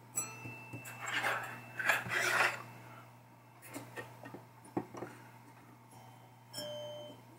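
Metal chime bars of a 1972 Williams Super Star pinball chime box being handled on the bench: scraping and rubbing of metal parts, with a chime bar ringing briefly just after the start and again near the end.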